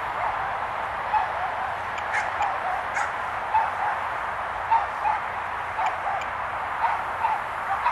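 Several dogs barking, about a dozen short barks at uneven intervals, over a steady background hiss.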